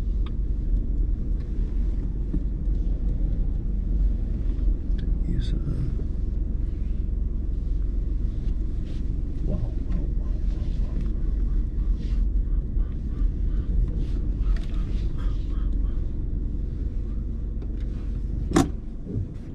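Steady low rumble of a BMW 1 Series (F20) car running, with a single sharp click near the end.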